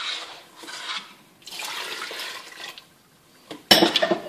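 Warm water poured from a bowl into a stainless-steel pot of dry semolina, in two pours, then a few clinks of a metal spoon against the pot near the end.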